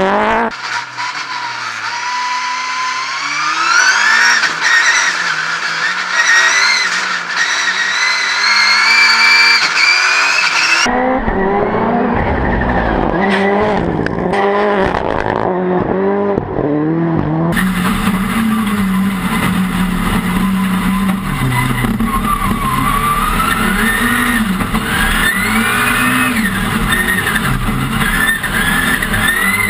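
VW Beetle rallycross Supercar's engine driven hard, its pitch climbing and dropping again and again as it runs up through the gears and lifts, heard in several cuts, on board for the last part.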